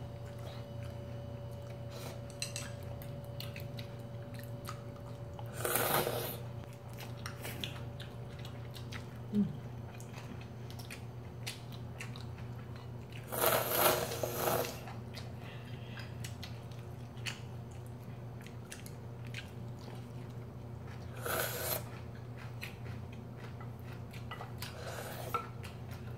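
Instant ramen noodles slurped in loud noisy bursts about four times, with chewing and light clicks of chopsticks on bowls between them. A steady low hum lies under it all.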